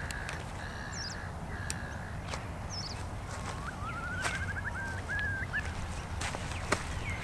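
Birds calling: a few short, repeated calls in the first couple of seconds, then a quick rising run of notes about halfway through. Sharp clicks and knocks come in here and there as a wicker picnic basket is unpacked, over a steady low rumble.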